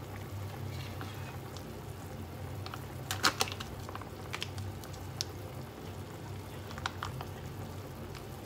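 A pot of soup simmering on a gas stove, bubbling steadily over a low hum, with a few light clicks and taps as a spoon scoops green curry paste out of its bag into the pot; the loudest taps come about three seconds in.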